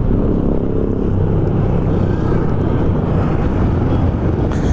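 Steady low rumble of wind buffeting the microphone, mixed with the engines of street traffic, including motor tricycles and a truck.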